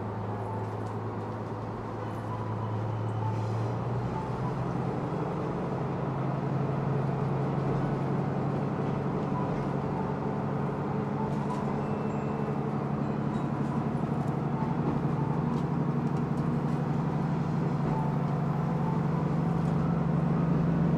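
Diesel engine of a KiHa 185 railcar heard from inside the carriage, running steadily. About four seconds in its note steps up and then climbs slowly as it grows louder, the engine working harder under power.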